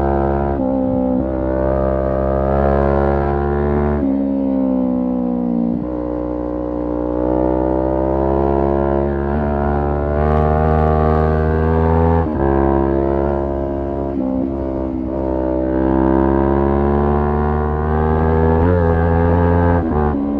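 Kawasaki Ninja 400's parallel-twin engine pulling under load, its note climbing steadily in each gear and broken by several gear changes, around four and twelve seconds in and again near the end.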